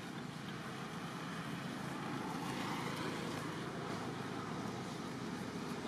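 Steady outdoor background noise, an even rumble and hiss with no distinct calls or knocks.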